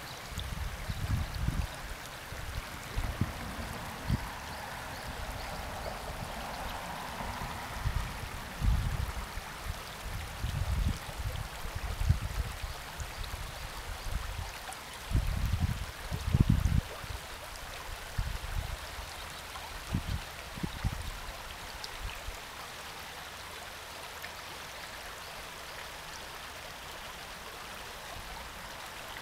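Shallow river flowing over a stony bed: a steady, even rushing of water. Irregular low rumbling bumps come and go through the first two-thirds, then stop, leaving only the water.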